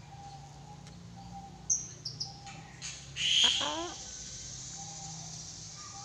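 Yellow-crested cockatoo giving a few short high chirps, then one loud hoarse call about three seconds in that falls in pitch.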